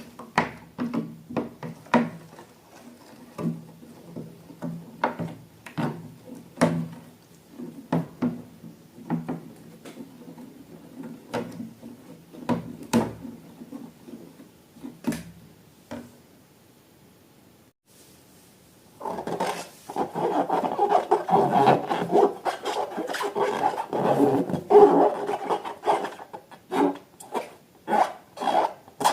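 Slime and rubber balloons being handled by hand: a run of sticky clicks and little pops, then, after a brief lull about two-thirds of the way in, denser rubbing and squishing with more pops.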